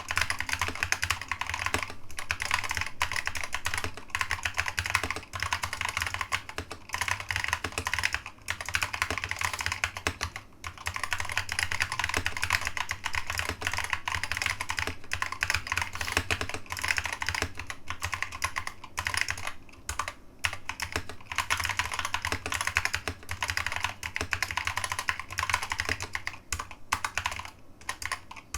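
Mechanical keyboard with new-old-stock SKCC green (complicated Alps) switches being typed on quickly and continuously, a dense run of key clicks broken by a few brief pauses. A steady low hum sits underneath.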